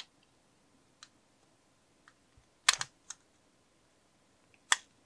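A few sharp, irregular clicks and taps from a micro metal gearmotor's gearbox knocking against the plastic motor channel as it is wiggled up and down by its shaft to free it from the retention fillets. The loudest come as a quick cluster a little past halfway and as one click near the end.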